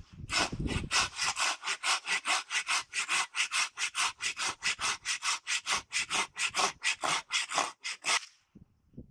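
Hand saw cutting through a wooden branch in quick, even back-and-forth strokes, about four or five a second, stopping about eight seconds in.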